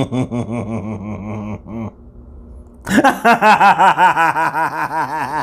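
A man laughing hard in quick, rhythmic ha-ha pulses. A first run stops after about a second and a half, and a louder, higher-pitched run starts about three seconds in.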